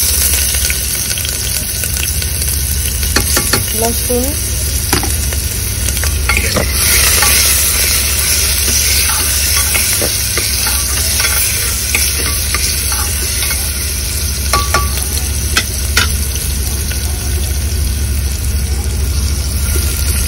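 Dal bubbling in steaming water in an open aluminium pressure-cooker pot, a steady hiss, while a spoon stirs it and now and then clicks against the metal.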